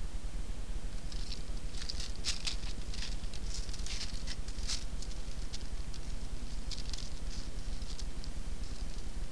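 Irregular small scratches and crackly ticks from an animal moving just out of sight, in two spells, over a steady low hum.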